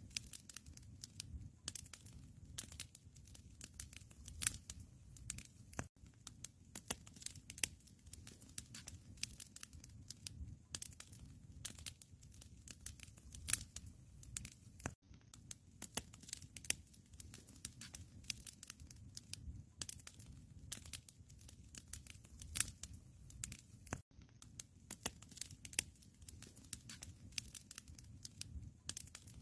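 Wood fire crackling in a fireplace: irregular snaps and pops over a low, steady rumble of the flames. The sound briefly cuts out three times.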